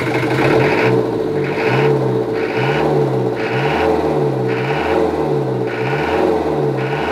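Sailboat's inboard diesel engine running, revved up and down over and over at about one rise and fall a second. It sounds healthy now that its valves open properly after the pushrod and rocker repair.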